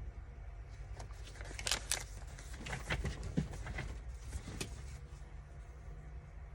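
Paper rustling and crinkling with scattered light clicks as a folded journal tag is opened out and handled. It is busiest in the first few seconds and eases off toward the end.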